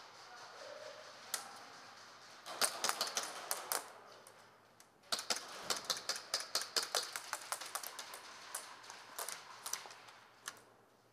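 Airsoft gunfire: two flurries of rapid, irregular sharp clicks and snaps, then scattered single shots near the end.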